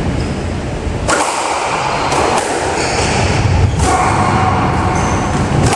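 Squash rally: a squash ball smacked by rackets and hitting the court walls, five sharp, irregularly spaced hits, with short high squeaks from shoes on the wooden court floor.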